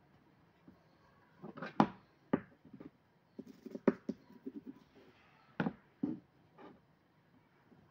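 A spoon and green chilies being handled on a cutting board: irregular light taps and a few sharper knocks and clacks, with a quick run of small taps around the middle.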